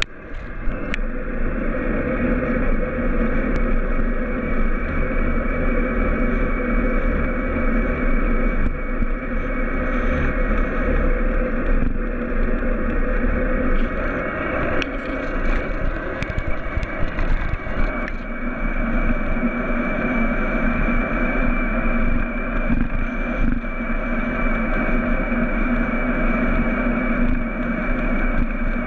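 Corratec e-bike riding at about 45–50 km/h: steady wind noise on the microphone and road noise, with a steady whine over it.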